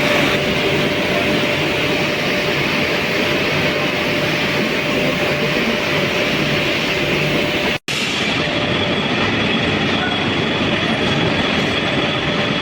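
Loud, steady industrial machinery noise of a steel melting shop, a dense rumbling roar with a faint steady hum in it. About eight seconds in it cuts out for an instant and then resumes slightly duller.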